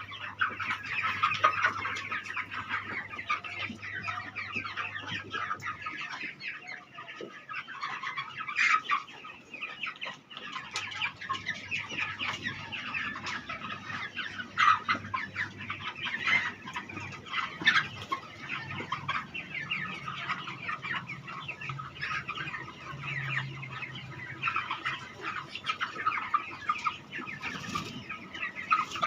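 A large flock of five-week-old chickens calling and clucking together in a dense, unbroken chorus. A steady low hum underneath drops out about six seconds in and returns about four seconds later.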